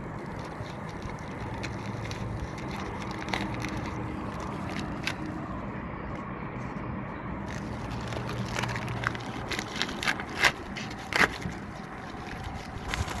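A small mail-order package being opened by hand: the wrapping rustles and crackles, with sharper crackles and snaps over the last few seconds, over a steady low background hum.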